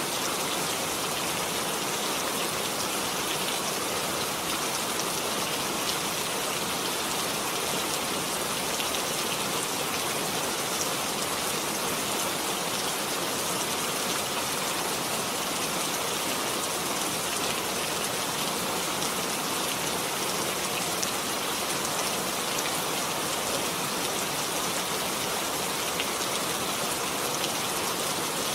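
Steady rain falling, an even hiss with many fine drops pattering on surfaces.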